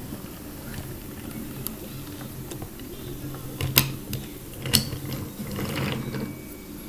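Wooden toy train rolling along wooden track as it is pushed by hand: a low, steady rumble of the wheels with two sharp clicks about a second apart partway through.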